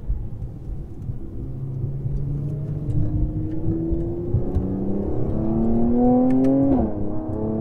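Mercedes-AMG C43 coupe's twin-turbo V6 pulling hard under acceleration on track, its note climbing steadily in pitch. Near the end the pitch drops suddenly on an upshift and starts climbing again.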